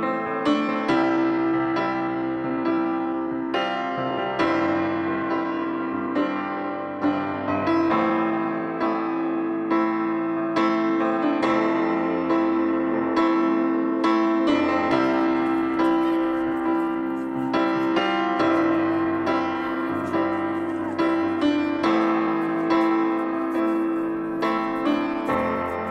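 Background piano music, a steady run of notes struck about twice a second over a held low tone.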